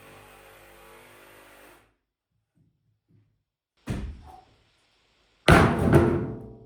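Two thuds of a thrown object landing: a short one about four seconds in, then a louder one a second and a half later that rings briefly as it dies away.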